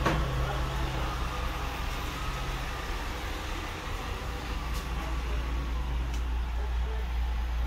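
A steady low engine rumble, with a hum above it that fades out about two and a half seconds in, and a few faint ticks.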